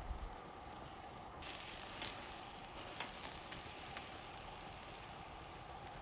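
Food frying and sizzling on a hot pan: thick cubed pieces that are still raw inside. The sizzle jumps suddenly louder about a second and a half in, with a few small pops, then slowly eases off.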